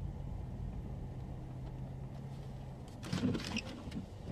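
Vehicle engine idling with a steady low hum. About three seconds in, a short burst of louder noise breaks over it.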